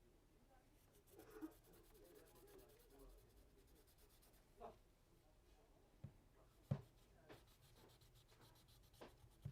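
Faint scraping and rubbing on the phone's frame as old adhesive and dust are cleaned off, with a few light taps of tools on the phone or bench, the sharpest about two-thirds of the way through.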